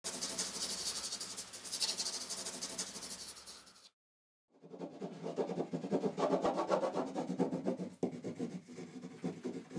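Pencil scratching and rubbing on paper in quick, dense strokes. It breaks off for about half a second around four seconds in and resumes with a lower, fuller rubbing sound.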